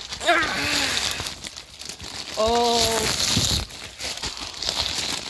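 Plastic mailer packaging crinkling and rustling as it is handled and pulled open, with two short wordless vocal sounds from the person, one just after the start and a longer held one about halfway through.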